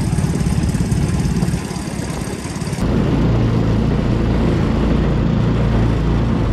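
Small single-cylinder pressure-washer engine, converted into a mud motor, running steadily as it pushes an aluminium john boat along, with wind and water noise over it. About three seconds in the running sound becomes louder and deeper.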